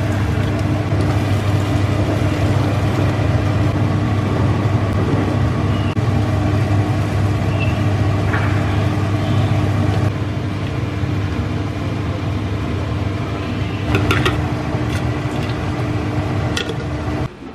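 Kitchen range hood fan running with a steady low hum over a wok of fish broth bubbling on the stove, with a few light taps about halfway through and near the end. The hum stops suddenly just before the end.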